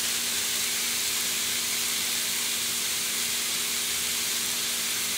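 Pork belly cubes sizzling steadily on a hot electric griddle, with a faint steady hum underneath.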